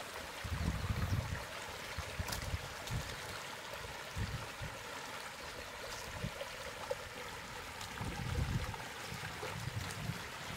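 Floodwater running and trickling, with low rumbling surges now and then.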